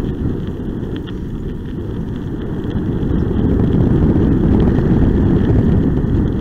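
Steady low rumbling of wind buffeting the microphone and the kickbike rolling along a wet road behind two pulling dogs, growing a little louder about halfway through.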